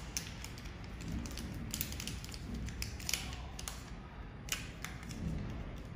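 A paper wrapper being handled and peeled open to take out a new laser-welder protection lens, making irregular small crackles and clicks.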